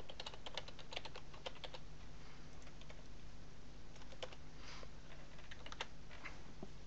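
Typing on a computer keyboard: a quick run of keystrokes for the first two seconds, then a few scattered single clicks.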